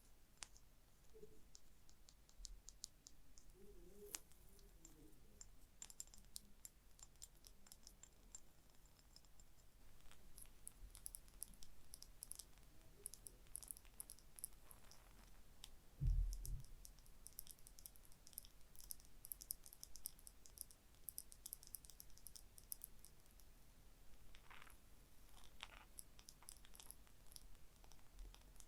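Gentle ASMR tapping and scratching on a small object: many faint, quick, light clicks. One dull thump about halfway through is the loudest sound, and there are a couple of short scratches near the end.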